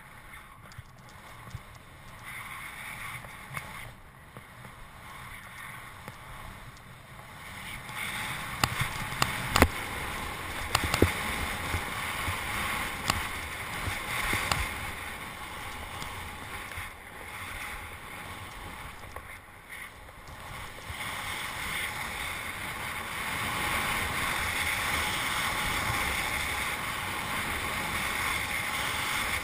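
Snowboard sliding through powder snow: a steady hiss of the board on snow, with a few sharp knocks about ten seconds in. The hiss grows louder about eight seconds in and again about two-thirds of the way through.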